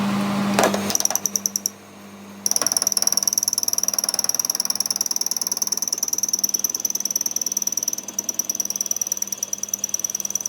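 Power tool in a machine shop running with a rapid, rhythmic chatter and a steady high whine. It cuts out briefly about two seconds in, then starts again and keeps going.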